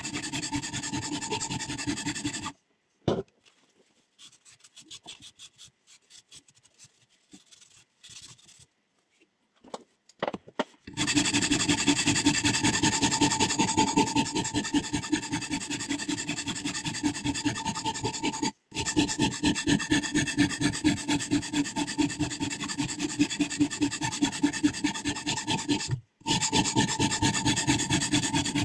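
Sharpening stone worked rapidly back and forth along a scissor blade's edge in a guided sharpening system: long runs of fast, even rasping strokes. About two seconds in the stroking stops for several seconds, leaving only a few light clicks and taps, then resumes with two brief breaks.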